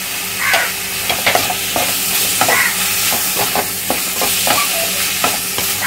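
Mushrooms frying in oil in a stainless steel kadai with a steady sizzle, while a flat spatula stirs them and scrapes against the pan in short, irregular strokes, mixing in the salt just added.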